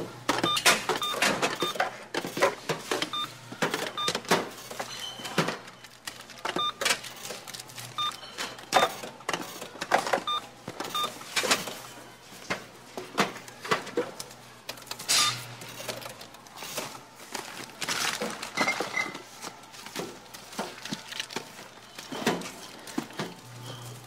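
Supermarket checkout ambience: short, high electronic register beeps recur every few seconds among frequent clicks, knocks and rustles of goods, bags and cash being handled.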